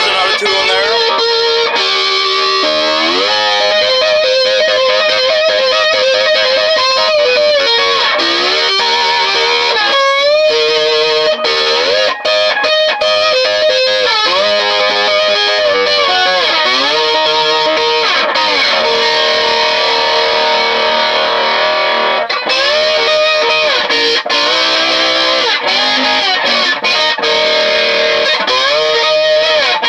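Electric guitar played with a slide through an amplifier: sustained notes and chords gliding up and down in pitch again and again. The player hears stray notes and a drifting tuning in this slide playing.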